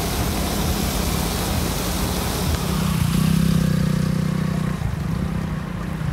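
A motor vehicle's engine running, louder from about three seconds in and easing off near five seconds, over a steady rushing noise.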